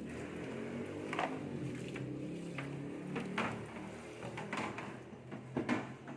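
Soft background music, with a handful of sharp knocks and clatters scattered through it, the loudest a quick pair near the end.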